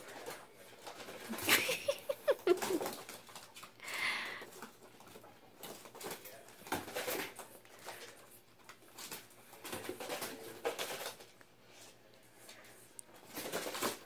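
Guinea pigs scurrying and hopping around a pen, making irregular pattering scuffles and light thumps on its padded floor, the busiest bursts about two seconds in.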